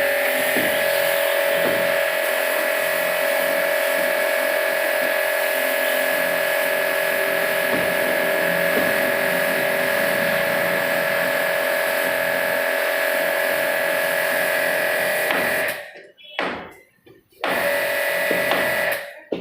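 A small electric motor running steadily with a whine and hiss, cutting out about 16 seconds in, then running again for about a second and a half near the end.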